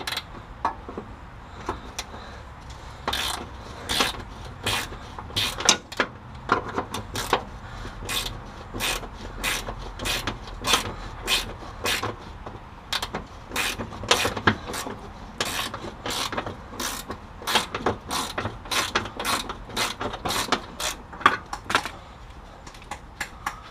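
Ratcheting hand wrench clicking in a long run of uneven strokes, a few clicks a second, as a lubricated nut is run off a front-suspension bolt.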